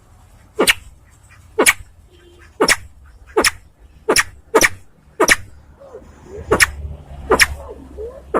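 Crested fireback (sempidan biru) giving a series of sharp, very short clicking calls, nine of them, about one a second at an uneven pace.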